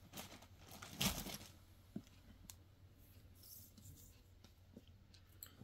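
Embroidered, sequinned suit fabric being handled and shifted, giving soft cloth rustles. The loudest rustle comes about a second in, followed by a small click and fainter rustles.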